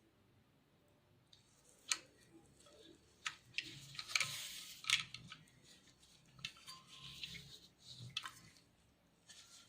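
Handling noises from an antique camera being worked by hand: several sharp clicks with a rubbing, scraping stretch in the middle.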